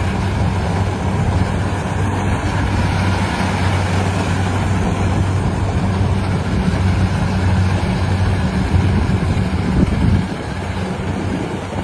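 Engine of a rice harvesting machine running steadily: a low hum under a rushing noise. The hum weakens a little about ten seconds in.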